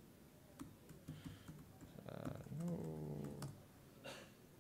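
Light key clicks of typing on a laptop keyboard, scattered and faint, with a short low voice murmur a little past the middle.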